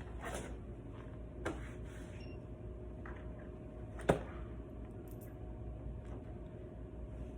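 A few light knocks and clinks, the loudest about four seconds in, over a steady low hum.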